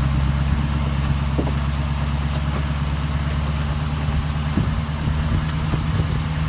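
Pickup truck engine running at a steady low speed, heard from inside the cab, with a few light rattles about four and a half seconds in.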